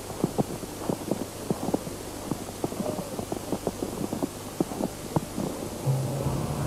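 Footsteps crunching on snow: quick, irregular steps, about three or four a second. Music comes in near the end.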